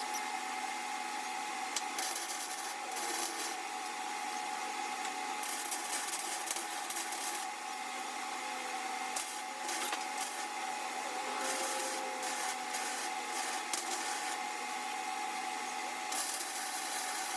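Intermittent hissy, scratchy metalwork noise over a steady hum. Short bursts come and go several times, the longest about a second and a half.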